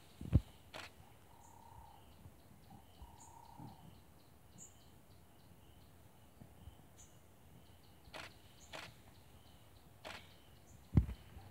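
Bush ambience: insects chirring in a fast, even ticking rhythm, with short bird chirps and calls. A few sharp knocks and two loud low thumps, one just after the start and one near the end, break through it.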